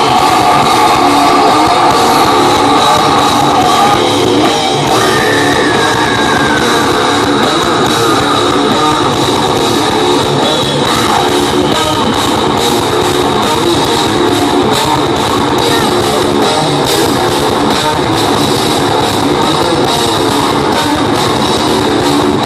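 A groove metal band playing live and loud, with distorted electric guitars and a drum kit.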